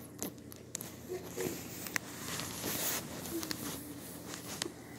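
Rustling and scattered light clicks and patters from a kitten moving about inside a nylon pop-up play tunnel on a wooden floor, with a longer rustle about two and a half seconds in.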